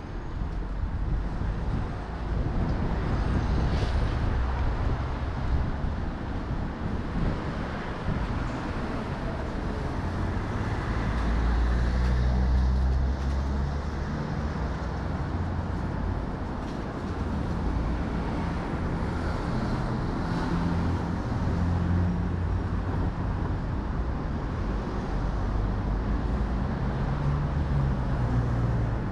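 Road traffic on a city street: a steady low rumble of vehicle engines and tyre noise.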